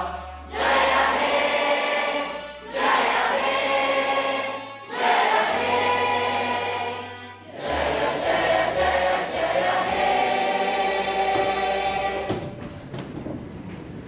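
A choir singing a song in phrases of a few seconds each over steady low bass notes from an instrumental accompaniment, trailing off near the end.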